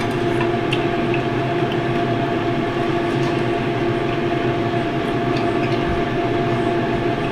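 Steady hum of an air fryer's fan running, holding one constant pitch.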